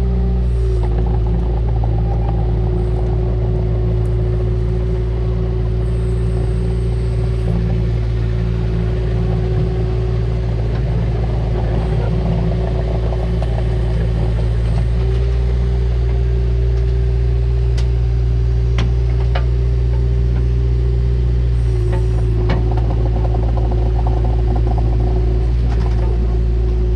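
Bobcat 331E compact excavator's diesel engine running steadily under work, with a steady whine over it. The engine note shifts about halfway through and again later, and a few sharp clicks fall between.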